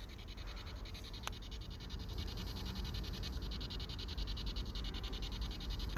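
P-SB7 spirit box sweeping through radio frequencies: a steady hiss of static chopped into rapid, even pulses by the scan, with a single sharp click about a second in.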